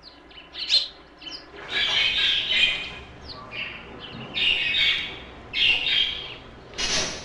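Small birds chirping and squawking in short repeated bursts, several calls overlapping.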